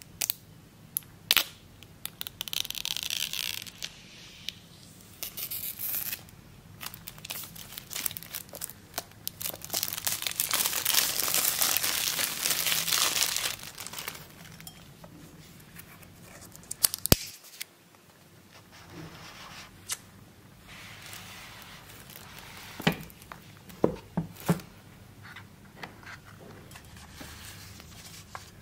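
Clear plastic shrink wrap being peeled, torn and crinkled off small cardboard Apple product boxes, loudest in a long crinkling stretch about ten seconds in. Between the crinkling come scattered sharp taps and clicks of the cardboard boxes being handled and opened.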